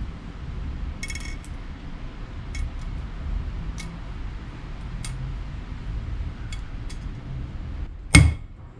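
A few light metal clicks and clinks as a ball bearing is worked by hand into its bore in a cast gearbox cover, then one sharp hammer blow about eight seconds in, knocking the bearing into its seat. The blow is the loudest sound, with a low steady rumble underneath throughout.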